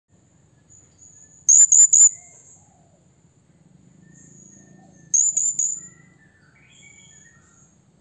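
Male blue-crowned hanging parrot (serindit) giving its shrill challenge call to rivals: two quick bursts of three sharp, very high notes about three and a half seconds apart, with fainter thin high whistles between them.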